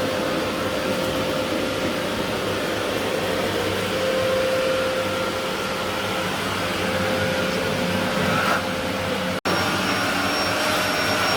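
Backpack vacuum cleaner's motor running steadily in blower mode, a constant rushing whir with a held hum. About nine seconds in the sound drops out for an instant, then resumes.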